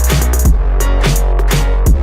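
Background electronic music with a heavy bass line and a steady drum-machine beat.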